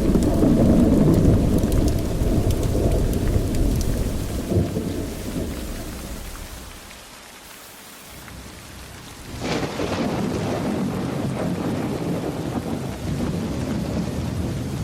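Thunderstorm: rolling thunder over steady rain. The first rumble dies away after about six seconds, then a new thunderclap breaks sharply about two-thirds of the way in and rolls on.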